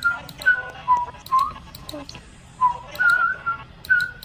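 A series of short whistled notes hopping between a few pitches like a tune, with sharp little clicks scattered among them.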